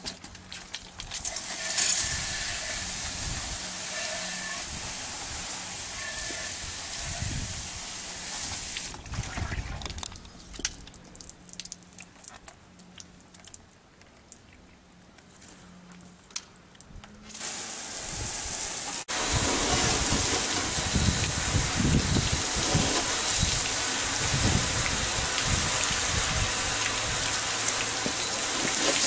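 Water hissing steadily out of a garden-hose-fed PVC underbody washer. The spray drops away about nine seconds in and comes back about eight seconds later.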